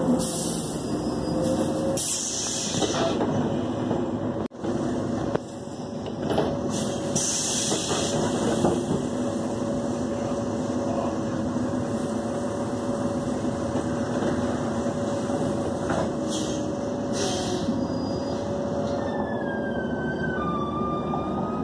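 Interior ride noise of an articulated city bus: the engine and drivetrain run steadily with a faint whine, and short hisses of air come about two and seven seconds in. The sound cuts out briefly about four and a half seconds in, and a siren starts near the end.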